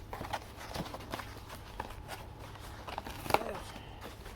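Scattered rustling and short clicks of hands handling granola-bar packaging, with one sharper click a little after three seconds in.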